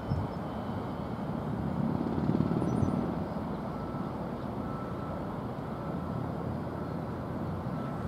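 Outdoor city background noise: a steady low rush, swelling briefly about two seconds in.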